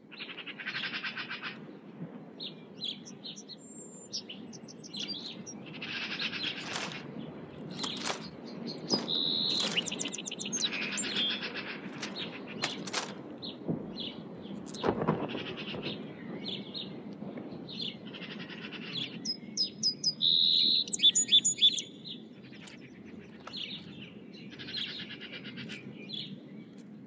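Woodland birds singing and calling: a mix of different songs, trills and quick runs of high chips, one after another, over a low steady background rumble, with a single soft knock about halfway through.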